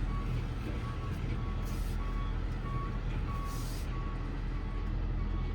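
Back-up alarm beeping evenly, about one and a half beeps a second, over the steady running of the 2012 Ford F-550's 6.7 Power Stroke diesel V8: the truck is in reverse gear.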